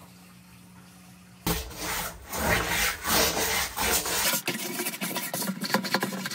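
A handheld scrub brush rasping over algae-coated aquarium ornaments and tank bottom in a drained fish tank, in repeated scrubbing strokes. It starts about a second and a half in, after a faint hum, and turns more scratchy and clicky near the end.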